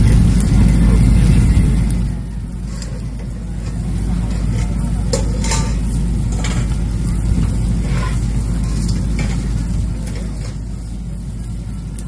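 Steaks and fish sizzling on a grill over open embers, with a few sharp pops around the middle. A steady low rumble lies underneath, loudest in the first two seconds.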